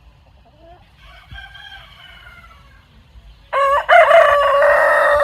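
Roosters crowing: a faint, distant crow about a second in, then a loud, close crow starting about three and a half seconds in and held to the end.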